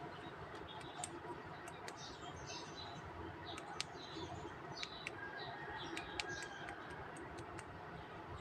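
Faint bird chirps in the background, with scattered light clicks.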